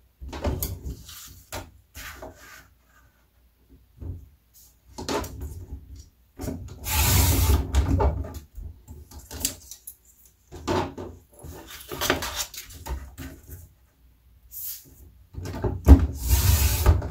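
Cardstock sliding and rustling on a Creative Memories rotary paper trimmer, with two longer scraping runs of about a second and a half, one near the middle and one near the end, as the blade carriage is pressed and rolled along the rail to cut the sheet.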